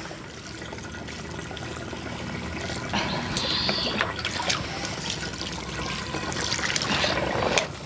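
Cold water poured from a steel pot onto boiled noodles in a stainless-steel colander, splashing and draining through the holes as the noodles are rinsed cool. The pour grows louder about three seconds in and stops just before the end.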